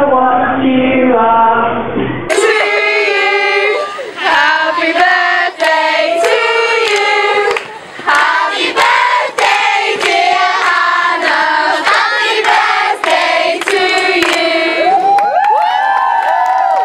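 A group of children singing together in unison while clapping along. About two seconds in the sound cuts to a larger group of children singing with steady hand claps in time. Near the end the singing gives way to rising-and-falling sliding calls.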